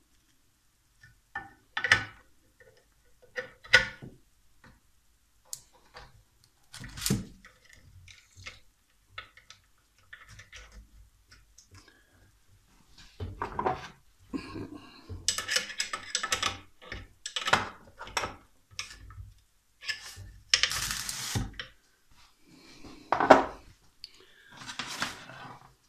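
Handling noises of wiring a small start capacitor into a bench grinder's plastic terminal box: sharp clicks and knocks as the spade connectors are pushed on, then scraping and rattling as the capacitor and wires are fitted into the box.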